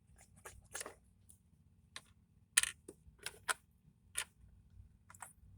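Small plastic clicks and taps from toy props being handled on a table, about a dozen at irregular spacing, with one sharper tap about two and a half seconds in.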